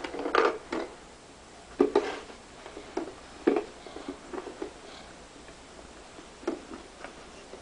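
A handful of separate knocks and clacks from a plastic toy tool box being handled, its lid opened and shut.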